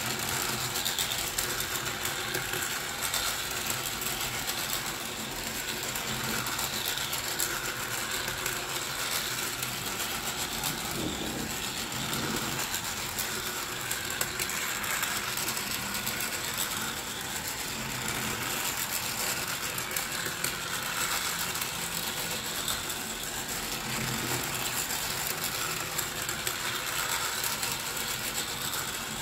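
Pink plastic toy train running around its plastic track: a steady whir of its small motor and plastic gears with a fast ratcheting tick, swelling a little every several seconds as it circles.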